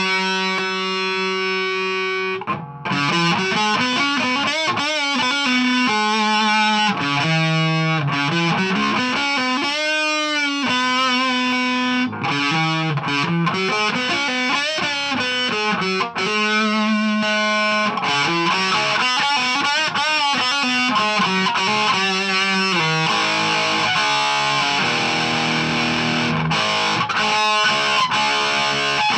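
Electric guitar with overdrive: a 2012 Epiphone Les Paul Standard through a Marshall Origin 20 head and a 2x12 cabinet. A chord rings out for a couple of seconds, then a lead line follows with bent notes and wide vibrato, growing busier near the end.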